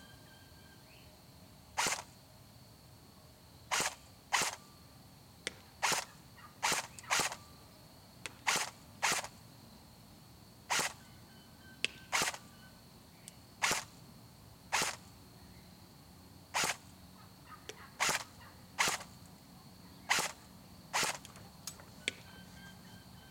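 Colt M4A1 airsoft electric gun (AEG) firing single semi-automatic shots, each a short sharp crack. About twenty shots come at irregular intervals of one to two seconds, some in quick pairs.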